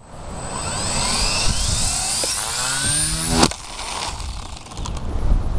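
Gaui X2 electric RC helicopter spooling up on its launch pad with a rising whine, then a sharp crack about three and a half seconds in as the rotor head comes apart. The feathering shaft shatters, which the owner blames on a slipped locking collar letting the top main-shaft bearing lift and unbalance the head. After the crack the whine drops away, and wind buffets the microphone near the end.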